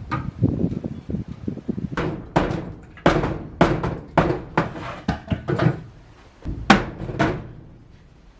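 Repeated hard knocks on timber, about a dozen sharp blows coming in runs roughly two a second with short pauses, as the old window frame is knocked apart. Low scraping and rumbling of wood being shifted fills the first couple of seconds.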